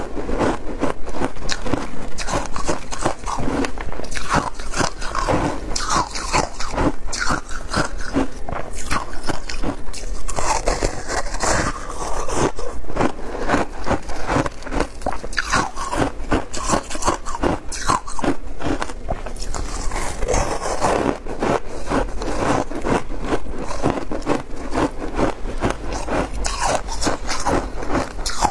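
Close-miked biting and crunching of compacted shaved ice coated in passion fruit pulp, a dense, continuous run of crisp crunches as it is chewed.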